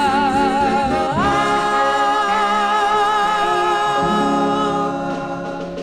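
Doo-wop vocal group singing the closing held chord of a song played from a 45 rpm record. The lead voice glides up about a second in and holds a long note over sustained backing harmonies, easing off near the end.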